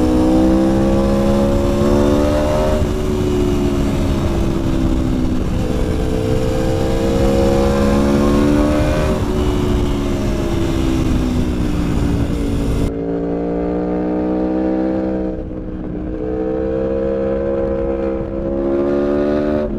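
Aprilia Tuono V4 Factory's V4 engine pulling hard while riding, its pitch rising under throttle and dropping back several times. A rushing hiss, wind on the microphone, drops away about thirteen seconds in.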